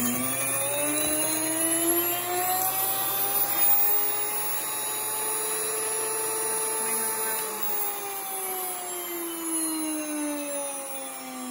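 WonderMill electric grain mill running as it grinds wheat berries into flour. It makes a steady motor whine whose pitch climbs over the first several seconds, holds, then sinks again through the second half.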